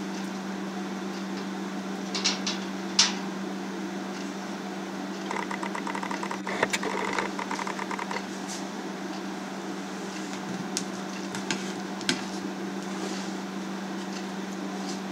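Steady electrical hum from the electric hob heating a pot of whey. Over it come a few sharp clicks and, about five seconds in, a short rattle as a plastic slotted skimmer knocks against the steel pot while cheese rounds are lowered into the whey.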